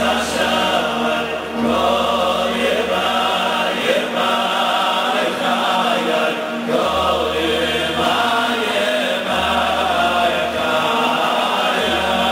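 A large crowd of Hasidic men singing a niggun together, a steady, chant-like group melody.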